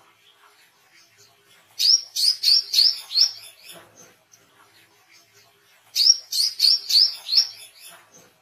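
Brown-throated sunbird (wiceh) calling: two bursts of rapid, sharp, high notes at about four a second, one about two seconds in and one about six seconds in, with faint soft chips between them.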